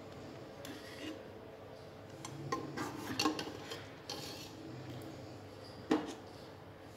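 A metal ladle scraping and clinking against the inside of an aluminium pressure cooker as egg curry is scooped up, in scattered short knocks with a sharper one near the end.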